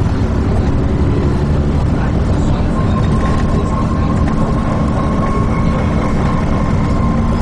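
Transbus ALX400 Dennis Trident 2 double-decker bus under way, heard from inside: steady engine and road noise, with a thin steady whine joining about three seconds in.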